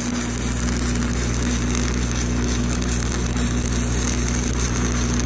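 Stick welding on steel pipe with a 7018 low-hydrogen Excalibur rod at about 188 amps: the arc crackles steadily while the bead is run. A steady low hum runs underneath.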